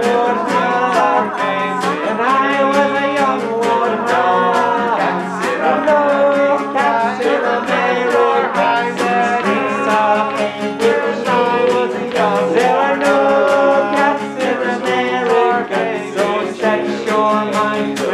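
Acoustic guitar strummed in a steady rhythm, with a voice singing a melody over it.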